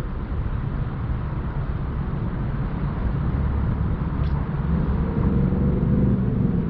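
Car engine running at low speed, a steady low rumble that grows somewhat louder after about three seconds.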